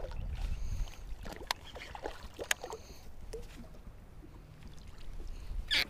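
A hooked bass splashing at the surface as it is reeled up to a kayak and lifted out, with scattered sharp clicks and knocks from handling the rod and gear. A low rumble in the first second fades out.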